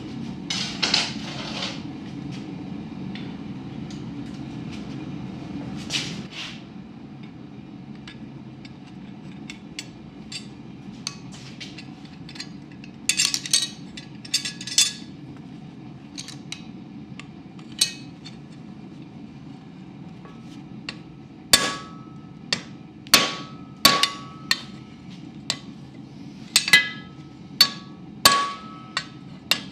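Hammer striking a hot rivet to set it through the joint of blacksmith tongs on an anvil. A few scattered blows come first, then a quick run of sharp, ringing metal-on-metal strikes in the last eight seconds. A steady low hum runs under the first six seconds.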